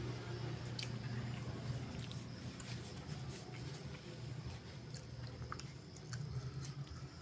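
Close-miked mouth chewing and biting: wet smacks and small crunchy clicks, scattered irregularly, from eating spicy chicken liver and gizzard with rice. A low steady hum sits underneath.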